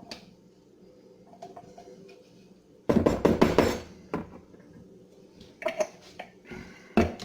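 Kitchen handling noise from a food processor's parts: a loud rattling clatter about three seconds in that lasts about a second, followed by a few sharp knocks, the loudest near the end.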